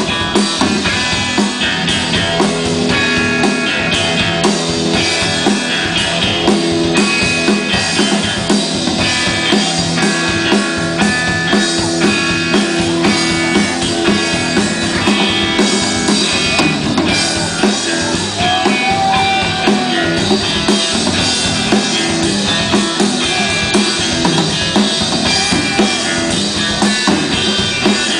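Live blues-rock trio playing an instrumental passage with no vocals: electric guitar over bass guitar and a drum kit keeping a steady beat.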